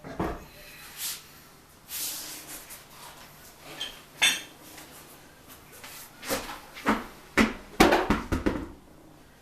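Metal clanks and knocks from tools and brake or wheel parts being handled, with a cluster of sharp clanks near the end.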